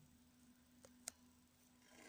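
Near silence: room tone with a faint steady hum, broken by two faint clicks about a second in.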